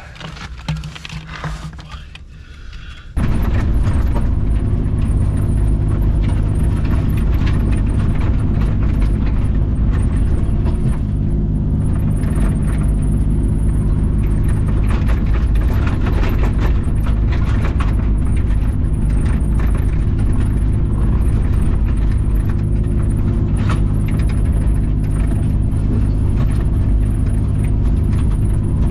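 Heavy-equipment diesel engine running steadily and close, coming in abruptly about three seconds in.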